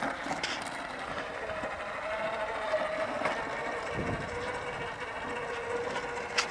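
Electric drive motor of a 1964 lawn tractor converted from gas to electric, whining steadily as the tractor drives along. The pitch dips slightly a little after halfway, and a few light knocks sound over it.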